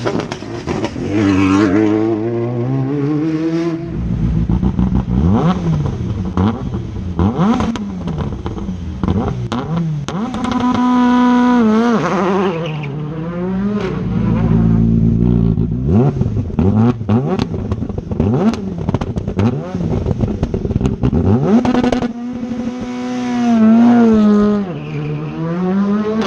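Rally car engine revving hard, its pitch climbing and dropping again and again through gear changes, with sharp cracks and pops from the exhaust.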